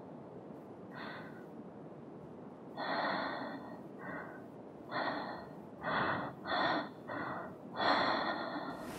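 A girl breathing in short, uneven gasps, about eight of them, coming closer together toward the end, over a faint steady hiss.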